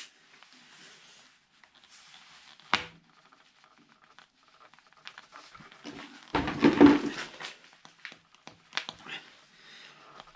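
Handling sounds of a tubeless tyre plug tool being worked into a mountain bike tyre: small clicks and rubbing, a sharp click about three seconds in, and a louder rustling stretch lasting about a second a little past the middle.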